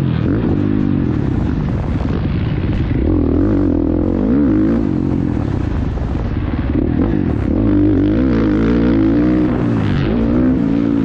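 Motocross dirt bike engine, heard close up from the rider's helmet, revving up and down as the throttle is worked through a turn and onto a straight. Its pitch repeatedly rises and falls.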